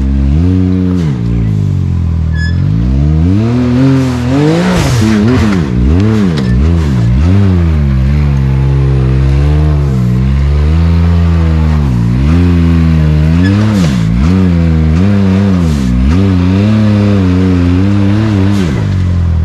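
Side-by-side UTV engine revving again and again as it crawls up a rock climb, its pitch swinging up and down with each stab of the throttle. There are a few sharp knocks, around five and fourteen seconds in.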